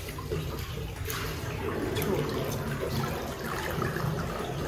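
Water trickling and lapping in a wooden open-air bathtub: a steady running-water sound with a few light splashes.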